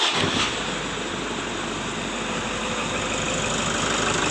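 Toyota Fortuner 2.5 G's four-cylinder turbodiesel engine running just after being started: the revs ease down in the first second and it settles into a steady idle.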